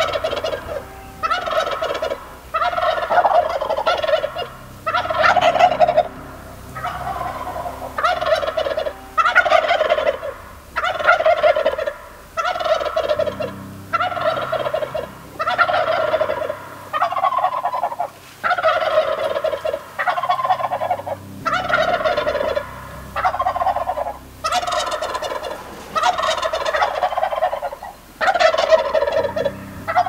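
Wild turkey toms gobbling loudly over and over, one gobble after another a little under once a second, so that the calls nearly run together.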